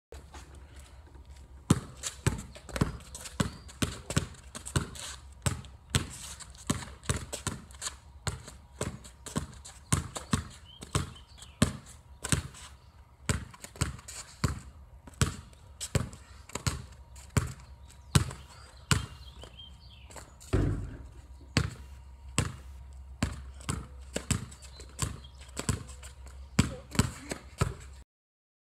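Basketball being dribbled on a wet concrete driveway: sharp bounces about one or two a second in an uneven rhythm, as in trick dribbling. They stop abruptly near the end.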